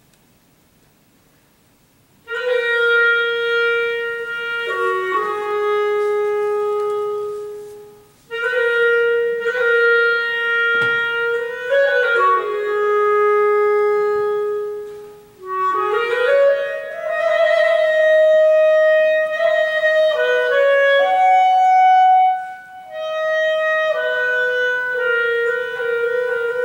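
Unaccompanied clarinet playing slow phrases of long held notes, entering after a couple of seconds of quiet and pausing briefly between phrases; partway through, one note glides upward into a higher line.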